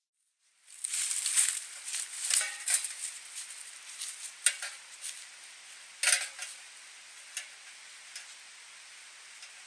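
Footsteps crunching irregularly through dry leaf litter and twigs on a woodland floor, with the gear and metal pot on a backpack knocking lightly. The steps thin out and fade as the walker moves away, leaving a faint steady hiss.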